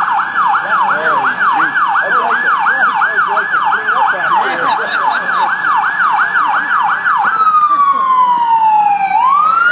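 Police cruiser's electronic siren in a fast yelp, about three sweeps a second, switching about seven seconds in to a slow wail that falls and then starts to rise again.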